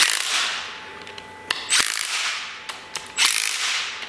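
Sharp metallic clicks, three or four about a second apart, each fading off over about a second: the Suzuki rear differential with a Powertrax Lock Right locker being turned by hand, the locker ratcheting.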